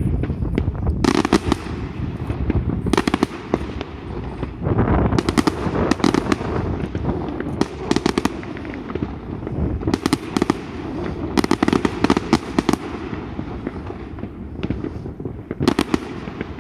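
Fireworks display: aerial shells bursting in repeated clusters of rapid sharp cracks every second or two, over a continuous low rumble.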